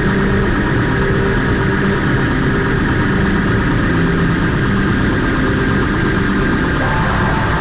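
Noise music: a loud, steady, dense rumbling drone with a few held tones running through it, which thickens a little near the end.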